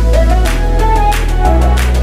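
Background electronic music with a steady beat, a melody line and deep bass notes that change about once a second.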